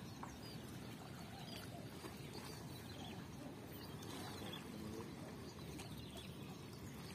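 Faint, steady low rushing background noise with a few faint high chirps, like birds or insects.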